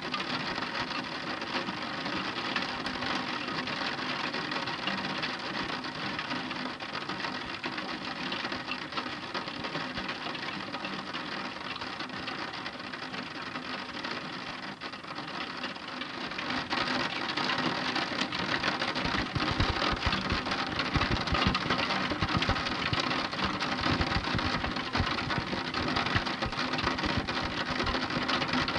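Heavy rain pattering densely on a surface. It gets louder a little past halfway, with heavier drop impacts.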